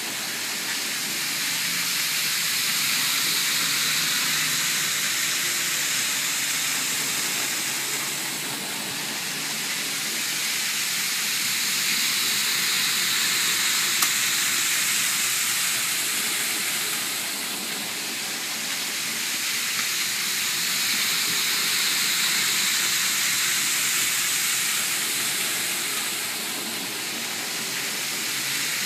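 N-scale model shinkansen trains running on Kato Unitrack: a steady high-pitched whirring hiss of small motors and wheels on the rails, swelling and fading every eight or nine seconds. A single sharp click sounds about halfway through.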